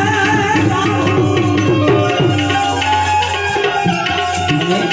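Instrumental interlude of a Gujarati devotional bhajan: harmonium holding steady notes over a hand drum keeping the rhythm, with the last sung note trailing off about a second in.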